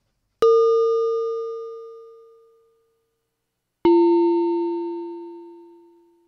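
Two struck bell-like tones about three and a half seconds apart, the second lower in pitch, each ringing out and fading over about two seconds.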